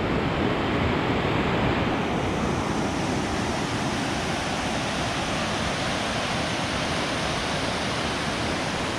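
White-water rapids of a mountain river rushing steadily.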